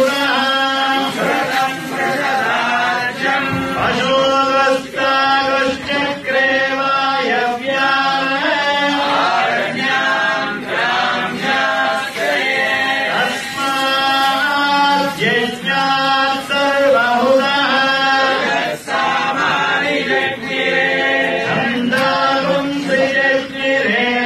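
A group of male voices chanting Hindu mantras in unison, a steady rhythmic recitation held close to one pitch, as accompanies the ritual bath (abhishekam) of a temple deity.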